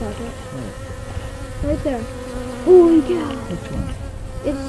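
Yellow jackets buzzing as they fly in and out close to a ground nest entrance, their hums rising and falling in pitch as each one passes. One passes loudest about three seconds in.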